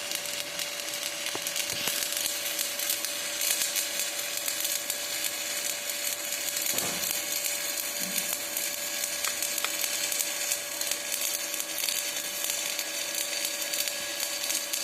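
Stick (SMAW) welding arc crackling and sizzling steadily as an E7018 electrode lays a fill pass, with a steady hum underneath. There is one brief knock about seven seconds in.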